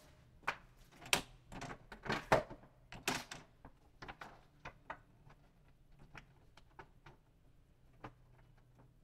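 A sheet of paper handled and slid into the rear paper feeder of an Epson L3250 ink-tank printer: a cluster of sharp rustles and clicks in the first few seconds, thinning to scattered light ticks.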